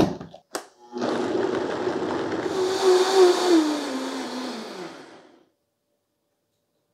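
Countertop blender puréeing diced apple with kombucha. Two short knocks, then the motor runs for about four seconds, growing brighter near the middle, and winds down with a falling pitch as it is switched off.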